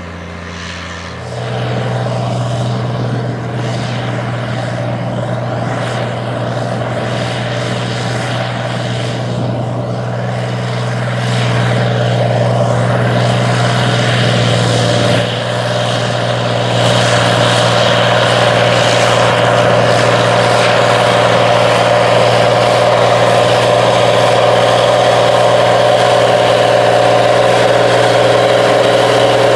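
Allis-Chalmers 4W-305 four-wheel-drive tractor's diesel engine pulling a disk harrow under steady load, a deep even drone that grows louder as the tractor comes closer. In the first second another big four-wheel-drive tractor's engine is heard, working a field cultivator.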